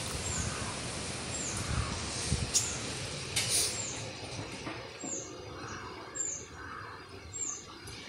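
Wind in the trees, with a bird repeating a short, high, falling chirp about once a second. A brief rush of noise comes about three and a half seconds in, and the wind eases after the midpoint.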